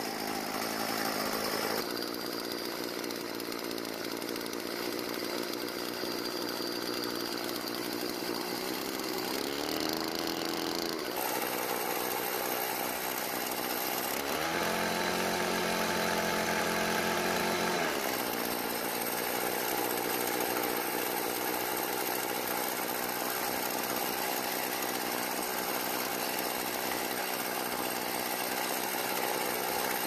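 Stihl FS36 string trimmer's small two-stroke engine running on its own. Its pitch rises briefly about ten seconds in and shifts again for a few seconds mid-way, without revving out. It runs after an idle-mixture adjustment but won't rev up, which the owner puts down to a possible muffler blockage or throttle cable problem.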